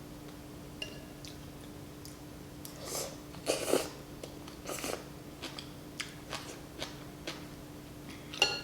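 Close-up mouth sounds of someone eating noodle soup: soft chewing and small wet clicks, with a louder stretch of eating noise about three and a half seconds in and a shorter one near five seconds.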